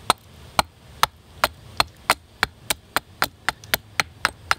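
Quick, steady strikes of a CRKT Birler carving axe shaving the corners of an upright oak handle blank on a stump. There are about fifteen sharp chops, roughly three a second, and they come slightly faster toward the end.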